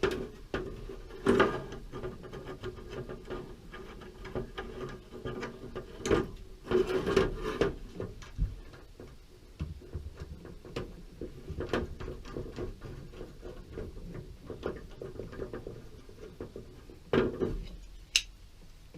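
Scattered clicks, knocks and light rubbing of small metal parts being handled as a 1/4-20 bolt and nut are fitted into a 1970 Chevrolet C10 tailgate latch, in place of a missing rivet. A faint steady hum runs underneath.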